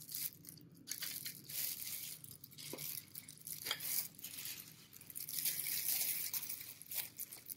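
Disposable plastic gloves crinkling and rustling, with a few light clicks of a metal spoon against glass bowls.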